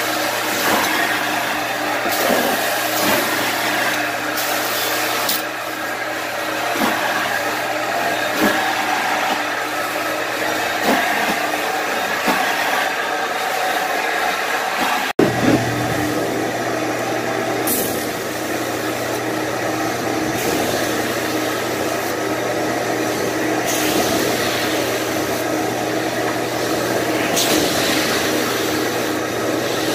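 Carpet-cleaning machine running steadily on stair carpet, a steady motor hum with a hiss and occasional sharper passes of the tool. The sound drops out for an instant about halfway and the low hum shifts after it.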